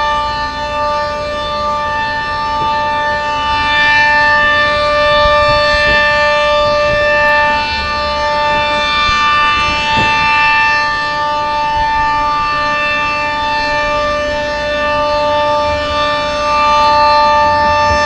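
Sentry 40V2T two-tone outdoor warning siren sounding at full speed during a test: a loud, steady two-tone chord that swells and fades slowly every few seconds.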